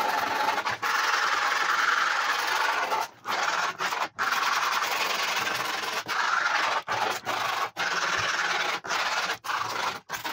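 Skateboard grip tape scraped hard along the edge of the deck with a metal tool, a rough rasping in long strokes with short breaks between them. The scraping thins and scores the grip tape along the deck's outline so it can be cut cleanly.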